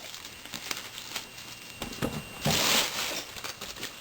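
Plastic wrapping on 2009-10 SPX hockey card packaging crinkling and being torn open, with small crackles throughout and a louder rip about two and a half seconds in.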